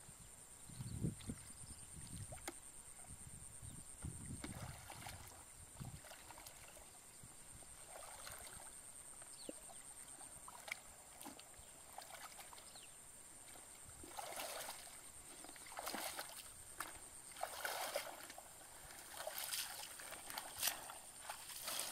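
Water sloshing and splashing as a person wades thigh-deep through a muddy pond, with soft low thumps in the first few seconds and louder, irregular splashes from about two-thirds of the way through. A thin, steady high-pitched whine runs underneath.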